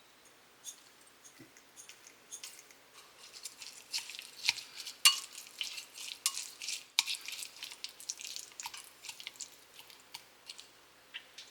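Irregular light clicks, taps and scrapes of food being handled and prepared in a kitchen, busiest in the middle.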